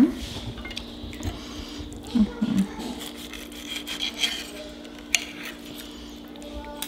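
Table knife and fork cutting through tomato and mozzarella slices, the knife scraping and rubbing on a ceramic plate, with light clicks of cutlery. A brief low murmur of a voice about two seconds in.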